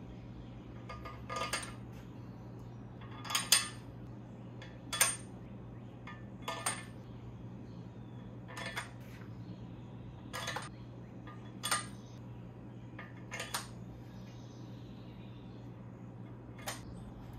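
Steel head studs clinking against the aluminium cylinder head as they are dropped into their holes and threaded in by hand: short, sharp metallic clinks, about nine in all, a second or two apart, over a steady low hum.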